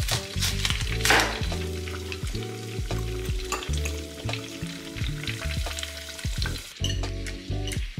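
Tofu frying in hot oil in a small saucepan, a steady sizzle that thins out near the end, under background music with a bass line.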